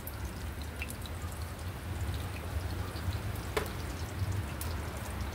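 Oil sizzling and crackling in a large cast-iron frying pan, with scattered small pops and one sharper pop about three and a half seconds in, over a low steady hum.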